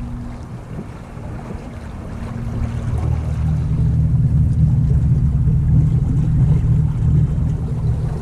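Low, steady boat motor rumble on the water, swelling louder about three seconds in and then holding.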